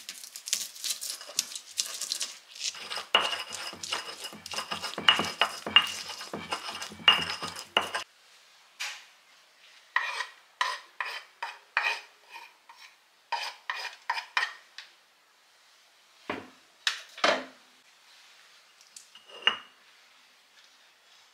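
A stone pestle pounding and grinding shallots and garlic in a stone mortar (cobek), rapid knocks and crushing for about eight seconds. Then separate light clicks, about two a second, of a spoon scraping corn kernels in a dish, and a few single knocks near the end.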